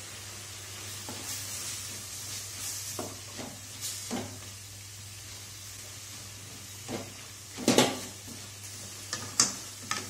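A wooden spatula stirring grated coconut into cooked red amaranth greens in a metal kadai, over a light sizzle, with sharp knocks of the spatula against the pan. The loudest knocks come a little before eight seconds in and near nine and a half seconds in.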